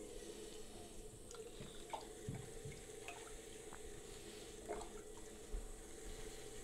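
Wet hands working a pot on a spinning electric potter's wheel: scattered faint squelches and drips of wet clay and slip over the steady hum of the wheel.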